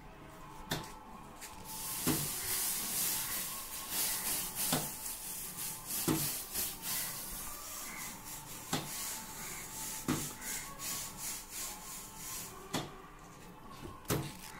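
A hand brush scrubbing back and forth across a metal mat mould, a scratchy hiss that starts about two seconds in and stops a couple of seconds before the end. Through it a sharp knock repeats about every second and a half.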